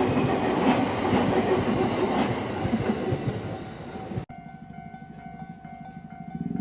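A JR Tokaido Line train passing close by, with a loud running rumble and its wheels clicking over the rail joints. The sound cuts off suddenly about four seconds in, leaving a much quieter steady hum.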